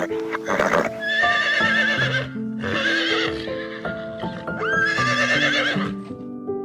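Horse whinnying three times. Each call lasts about a second and has a quavering pitch. Background music with held notes plays underneath.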